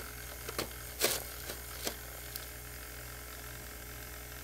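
Small battery-powered motor of a KollerCraft gravel siphon humming steadily underwater while it vacuums aquarium gravel. Several sharp clicks in the first couple of seconds, the loudest about a second in, are gravel and debris knocking inside the clear plastic tube as they are sucked up.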